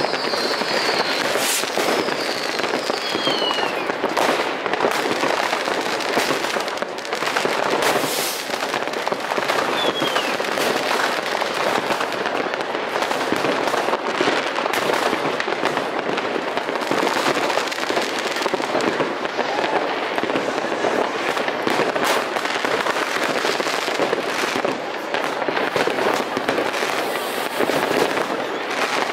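Many fireworks rockets and firecrackers going off across a town at once: a continuous dense crackling and popping, with louder bangs about a second and a half in and again around eight seconds. A couple of short whistles fall in pitch, about three seconds in and again around ten seconds.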